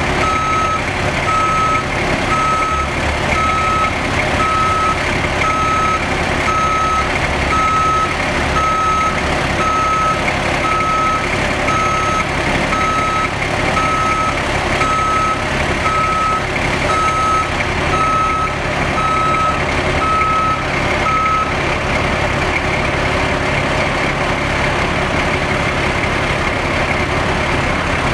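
Heavy truck's backup alarm beeping about once a second over the steady running of a Cummins LTA 10-litre six-cylinder turbo diesel: the truck is reversing. The beeping stops about three quarters of the way through while the diesel keeps running.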